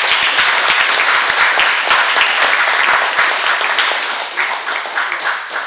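Lecture audience applauding, dense and steady, thinning out and fading over the last second or two.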